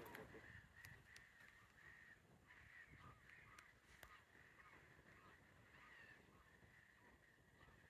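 Faint, distant birds calling: a steady run of short, repeated calls, a few each second, with a few faint clicks.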